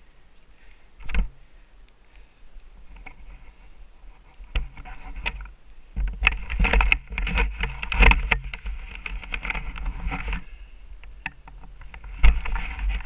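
Skis scraping and hissing over snow, densest and loudest through the middle, with wind buffeting the camera microphone as a steady low rumble. A sharp knock about a second in and another loud thud near the end.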